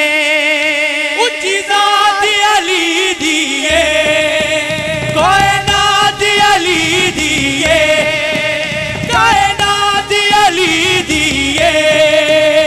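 Live Sufi devotional music: a sustained, wavering melodic line carries on without sung words. About four seconds in, drums come in and keep a steady beat under it, an instrumental bridge between two devotional songs.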